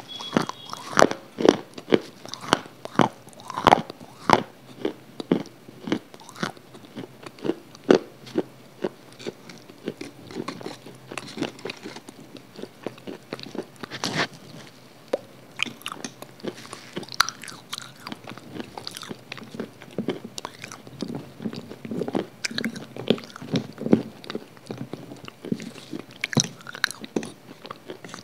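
Close-miked crunching bites and chewing of brittle white slabs. Sharp, loud crunches come in quick succession over the first several seconds, then softer chewing with occasional crunches.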